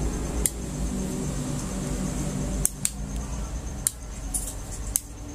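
About five small sharp clicks as a motorcycle handlebar switch is worked and multimeter test probes are handled against its wires, two of them close together near the middle, over a low steady background hum.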